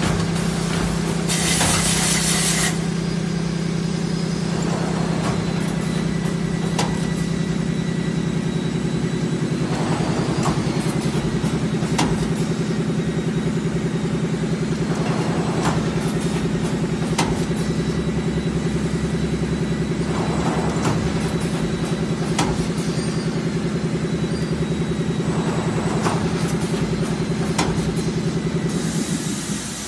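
LS-A6 fully automatic bottle blow moulding machine running: a steady machine hum, with a loud hiss of compressed air about two seconds in. Sharp clicks and short puffs of air repeat every few seconds as it cycles.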